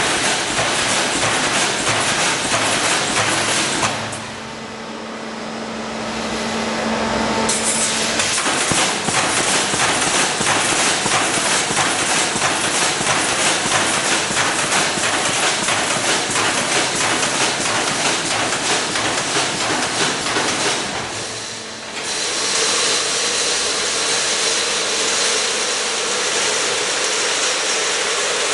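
Semi-automatic resistance welding machine for reinforcing wire mesh running, with a dense, steady clatter and hiss. The noise dips briefly about four seconds in and again about three quarters of the way through.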